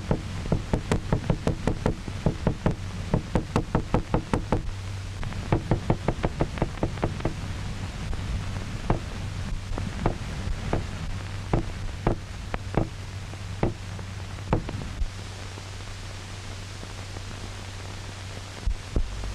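Small hammer tapping on metal, a quick run of ringing strikes about four a second that turns into slower, spaced-out taps and stops about three-quarters of the way through. A steady low hum from the old film soundtrack runs throughout.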